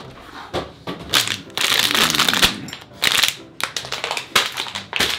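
Empty plastic bottles clattering as they are knocked over and kicked about: an irregular run of sharp knocks, with a longer rush of clatter about two seconds in.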